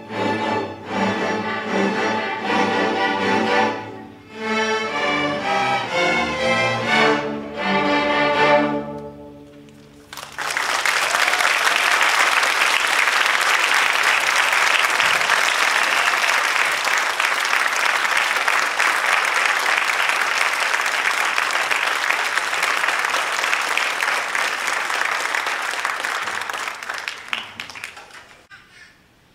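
A school string orchestra plays the closing bars of a piece, ending on a held chord that dies away about ten seconds in. An audience then applauds steadily, the clapping fading out near the end.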